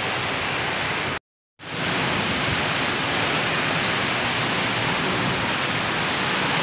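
Typhoon wind and rain making a steady rushing noise, cut off by a brief gap of silence about a second in.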